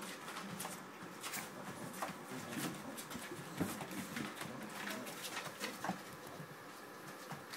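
Labrador retriever puppies, six to seven weeks old, playing: low growls and grunts, with scratching and rustling as they scramble over paper on the floor.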